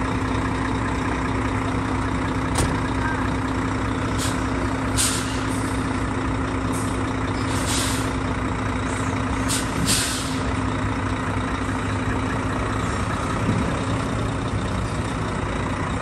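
Semi-truck tractor unit's diesel engine idling steadily, with several short, sharp hisses of compressed air from its air brake system in the first part.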